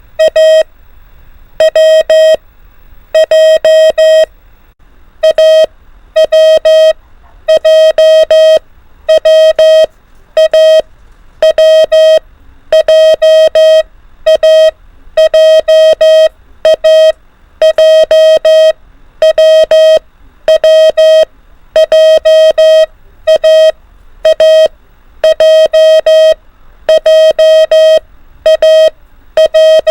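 Morse code practice tone, a mid-pitched beep sending letters as dots and dashes at 24 words per minute, in groups separated by short gaps.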